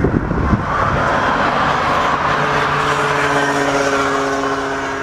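Twin-engine jet airliner's turbofans at takeoff power on the takeoff roll: a broad, loud rush with steady droning tones underneath, swelling and then easing off as the aircraft pulls away. Wind buffets the microphone at the start.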